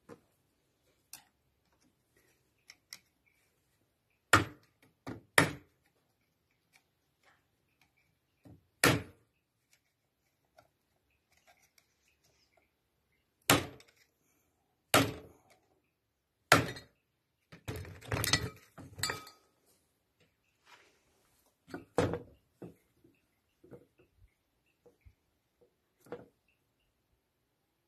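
Hand tools and metal starter parts knocking and clinking on a workbench while a disassembled Paris-Rhône starter motor is worked on. There are about a dozen separate sharp knocks, with a quick run of clattering about two thirds of the way through.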